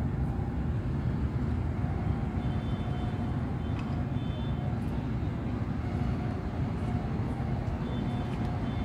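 Steady low rumble of idling vehicle engines and street traffic, with a few faint high squeaks over it.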